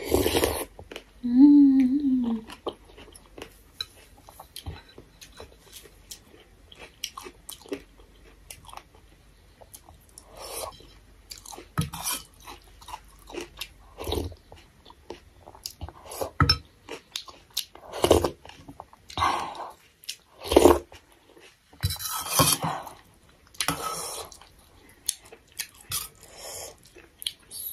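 Close-up mouth sounds of someone eating thukpa noodle soup: chewing and slurping spoonfuls in a string of short, irregular wet sounds. There is a brief hummed 'mm' about two seconds in.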